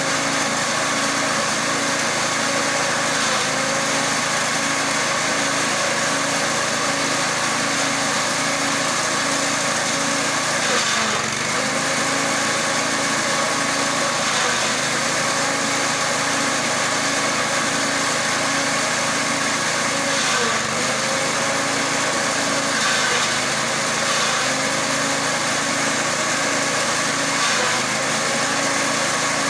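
Engine-driven grass chopper machine running steadily, its note dipping briefly three times.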